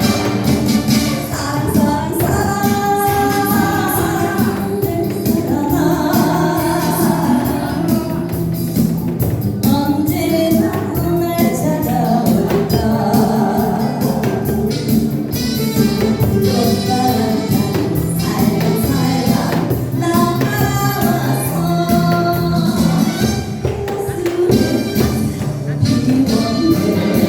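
A song sung by a singer with instrumental accompaniment.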